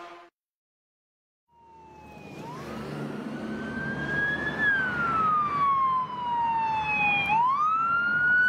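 A siren wailing: its pitch rises for about two seconds, falls slowly, then rises sharply again near the end, over a low rumble. It starts about a second and a half in, after dead silence.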